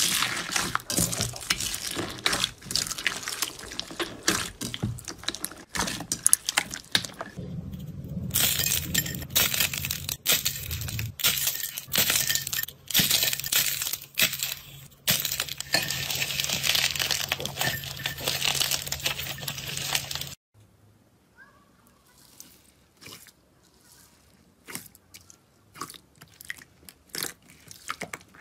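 Hands squishing, pressing and pulling apart slime: dense crackling, popping and wet clicking, with foam beads crunching in clear slime and a clay-like slime being torn. A steady low hum sits under the middle part. About twenty seconds in the sound drops to quieter, scattered sticky clicks from clear slime being kneaded.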